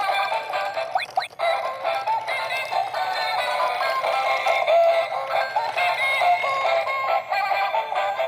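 Battery-operated egg-laying toy hen playing its built-in electronic tune: a continuous melody of short stepped synthesized notes, thin and without bass.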